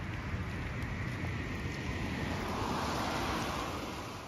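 Wind rumbling on the microphone over a steady hiss of tyres on a wet road, swelling about three seconds in and then fading.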